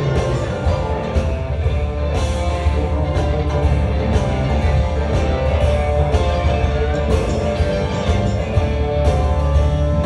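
Live blues-rock band jamming loudly: electric guitars, bass guitar, keyboards and drums. Heard from the audience.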